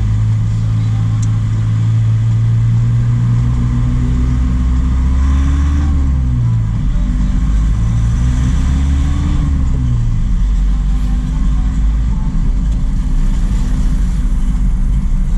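Truck engine running on the road. Its pitch climbs slowly and then drops away twice, about six and ten seconds in.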